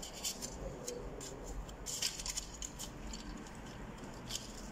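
Light clicks, taps and scrapes of an exit-sign light box's aluminium frame and plastic panel being handled and fitted together by hand, with a sharper click about two seconds in and another near the end.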